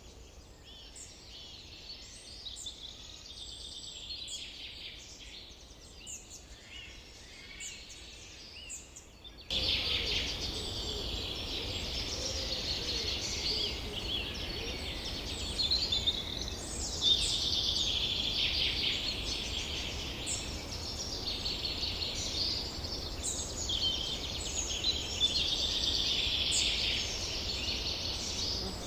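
Dense chorus of many birds singing, with overlapping chirps and trills. About nine and a half seconds in, the sound jumps suddenly louder, with a steady low rumble underneath.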